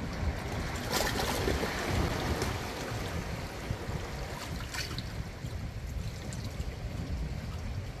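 Small sea waves lapping and splashing against a rock ledge on a rocky shore, with a louder splash about a second in and a smaller one just before five seconds.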